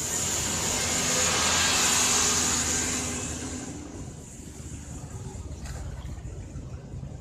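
Tour bus air brakes hissing on a steep downhill. The hiss swells to a peak and fades out about four seconds in, leaving the bus's engine running low.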